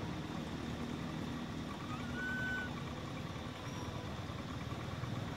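Steady low hum of an idling engine, with one brief high chirp about two seconds in.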